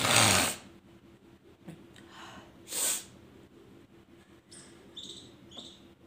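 A woman's loud sharp breath bursts through the nose and mouth, one right at the start and another nearly three seconds in, with fainter sniffs between. She is tickling her nose with a cloth to bring on a sneeze, and no full sneeze comes.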